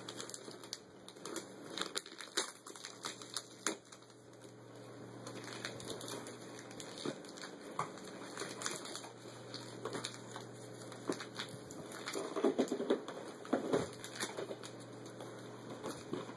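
Gift wrapping paper and tissue paper crinkling and tearing as a small box is unwrapped by hand, in irregular crackles and rustles, busiest and loudest about three quarters of the way through.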